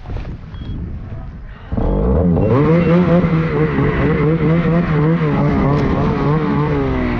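Snowmobile engine running hard close to the microphone, cutting in suddenly about two seconds in, its pitch wavering up and down as the throttle changes. Before it, an avalanche transceiver in search mode gives short high beeps about once a second.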